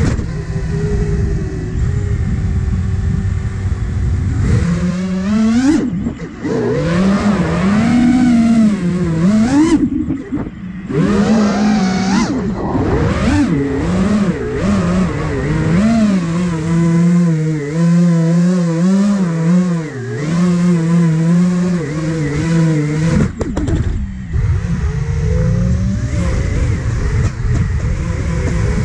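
The motors and propellers of a five-inch iFlight Nazgul Evoque F5 FPV quadcopter, whining and rising and falling in pitch as the throttle is worked in freestyle flying. There are sharp punch-outs about 6 and 12 seconds in, and the sound drops away briefly near 10 and 23 seconds as the throttle is cut.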